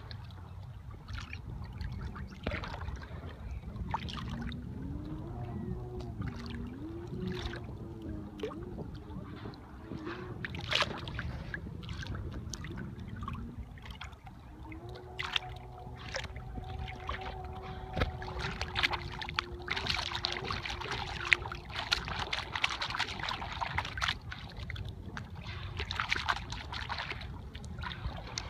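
Choppy salt water lapping and slapping close to the microphone, with sharp splashes and wind. A faint drone wavers in pitch early on and holds a steady pitch in the middle stretch.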